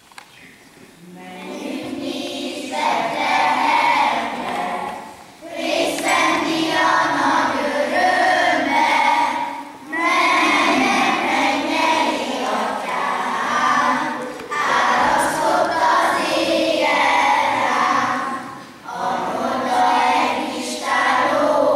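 A group of children singing a Christmas song together, starting about a second and a half in and going on in phrases with short pauses between lines.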